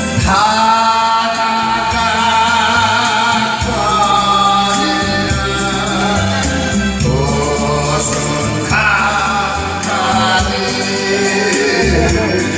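Music between two sung verses of a slow ballad: long held melody notes over a stepping bass line, with a light steady tick of percussion.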